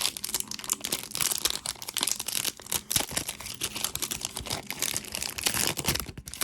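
Trading card pack wrappers being crinkled and torn open by hand: a dense, continuous crackling of plastic wrapper.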